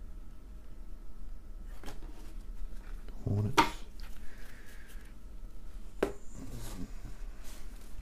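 Trading cards being handled in the hands: cardboard cards sliding against each other and tapped square, with a few light clicks and a louder knock near the middle.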